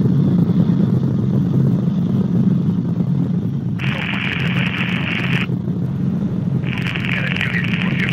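Cabri G2 helicopter's piston engine and rotors in cruise, heard through the headset intercom as a steady low drone. Twice, about four seconds in and again near the end, a thin hiss, like an open radio channel, comes in over it for a second or two.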